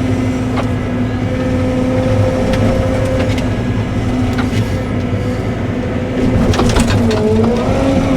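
Cat 313 excavator's diesel engine running steadily, with scattered sharp cracks and knocks. A cluster of them comes about six and a half to seven seconds in, as the engine pitch sags briefly under load.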